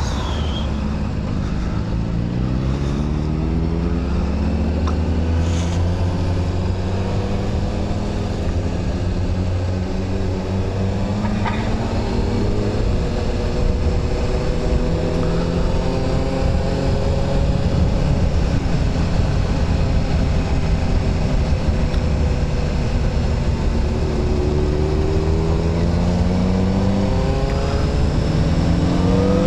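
Honda CBR sport bike's engine under way, its note climbing as it accelerates early on and again later, with a short dip near the end, over a steady rush of wind.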